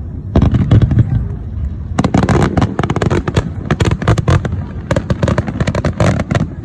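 Fireworks going off in a loud, rapid barrage of many sharp bangs and crackles. A short burst comes first, then after a brief lull the bangs crowd together densely.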